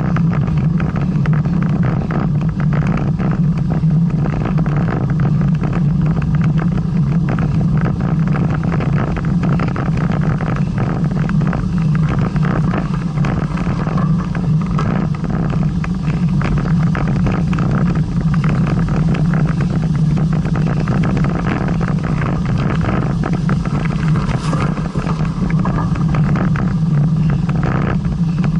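Steady rumbling noise of wind buffeting the microphone on a moving bicycle, with no pauses or distinct events.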